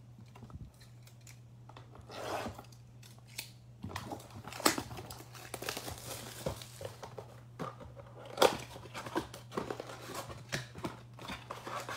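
Plastic shrink-wrap being torn off a cardboard trading-card box, the cellophane crinkling, with irregular sharp snaps and rustles as the box is turned and opened.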